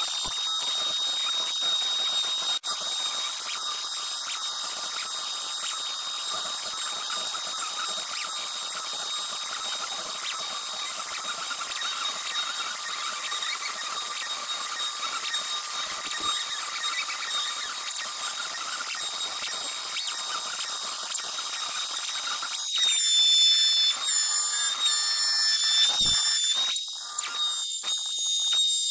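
CNC Shark router V-carving wood: a steady high whine over cutting noise. About 23 seconds in it grows louder, the whine changes pitch, and it is broken by short gaps.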